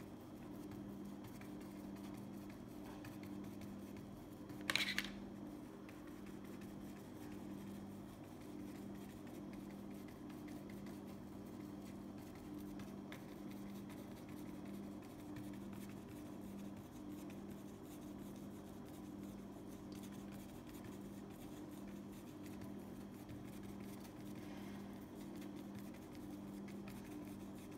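Paintbrush dabbing and scrubbing acrylic paint onto a canvas sheet: faint dry scratching over a steady low hum, with one short sharp click about five seconds in.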